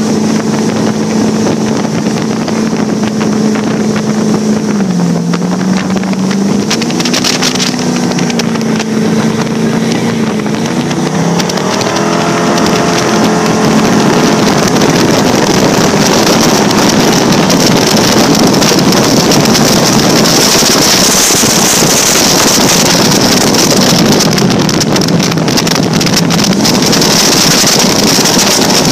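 Speedboat engines running at speed on open water: a steady engine drone whose pitch dips briefly about five seconds in and shifts again around twelve seconds. Wind on the microphone and the rush of water and spray grow louder through the second half.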